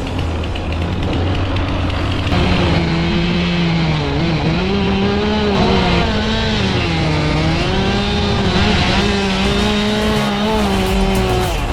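Heavy machine's engine running under varying load, over a low steady hum. About two seconds in a strong engine drone comes in, its pitch rising and falling repeatedly, and it drops away just before the end.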